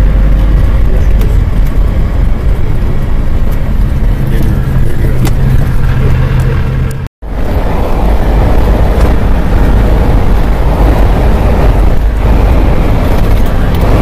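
Steady low road and engine rumble of a car driving on an asphalt road, heard from inside the cabin. The sound drops out for a split second about halfway through, then the same rumble carries on.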